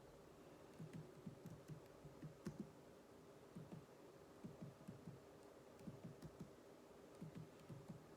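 Faint typing on a computer keyboard: irregular keystrokes in quick runs with short pauses between them.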